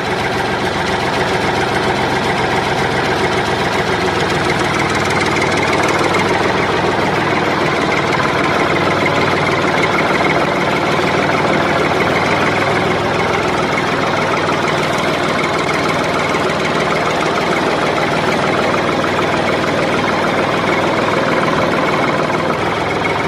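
A tractor engine idling steadily.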